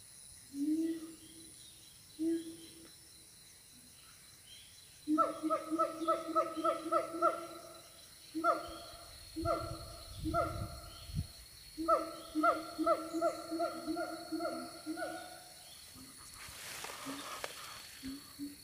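Siamang gibbons calling: a couple of single hoots, then three bouts of rapid repeated hooting notes, about three or four a second.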